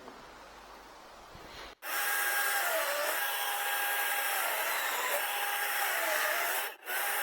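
Electric DeWalt chainsaw starting abruptly about two seconds in and running with a steady high whine while rounding a wood turning blank; its pitch sags briefly three times as the chain bites into the wood. It stops for a moment near the end and starts again.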